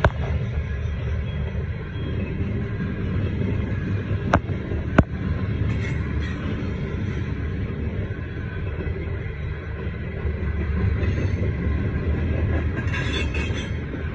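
CSX freight train's cars rolling past over the crossing: a steady low rumble of wheels on rail, with a few sharp clicks, one at the start and two around four to five seconds in. Heard from inside a car.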